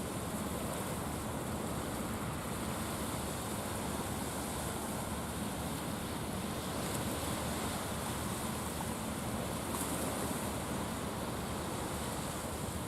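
Steady rush of wind and sea noise, an even hiss with no distinct events.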